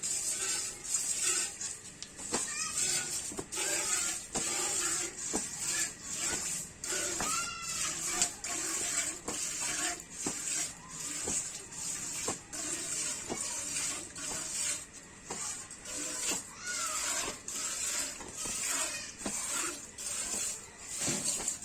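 Cow being milked by hand: jets of milk squirt into a pail in a steady rhythm of hissing spurts, one or two a second.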